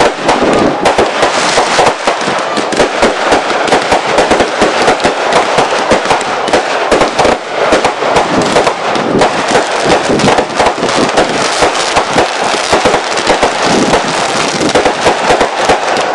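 Fireworks display: a dense, continuous barrage of rapid bangs and pops with no pause.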